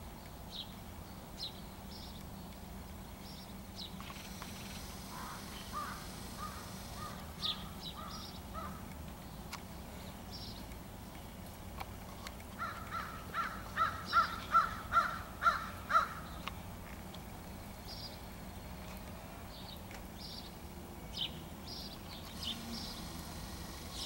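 Crows cawing: a faint run of caws about five seconds in, then a louder run of about ten quick caws, roughly three a second, around the middle. Faint high chirps come and go throughout.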